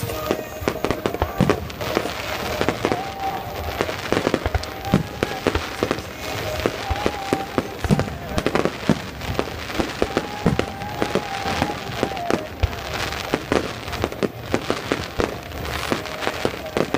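Fireworks exploding in quick succession throughout, a dense run of bangs and crackles, with music and a sung melody playing underneath.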